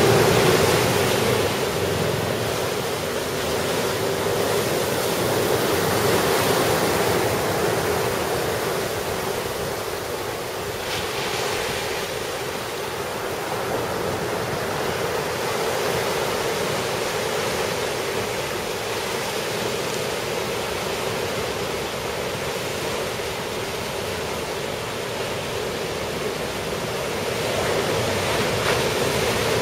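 Ocean surf breaking in a typhoon swell, a steady wash of waves with wind on the microphone.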